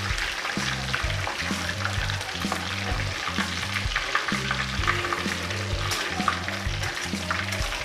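Marinated fish frying in hot oil in a wok-style pan, a steady sizzle full of small crackles, with a spatula stirring and turning it.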